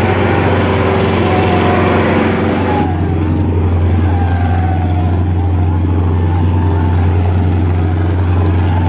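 Diesel tractor engine labouring under heavy load while dragging a harrow through ploughed soil: a loud, steady low drone. About three seconds in the sound changes abruptly and the drone grows stronger.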